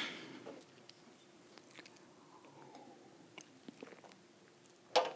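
A pause picked up by the presenter's microphone: quiet room tone with a few faint clicks and mouth noises, and a short rush of noise at the start and again near the end.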